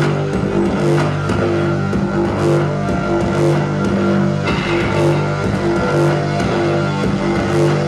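Live rock band playing: guitar and bass holding repeated notes over regular drum hits.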